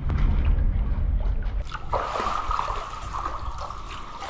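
Water sloshing and trickling as a fishing net is hauled by hand through shallow muddy water. A low rumble in the first two seconds fades about halfway, leaving a steadier trickling hiss.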